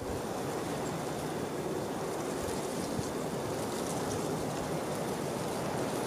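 Steady rush of wind, an even hiss with no gusts or breaks.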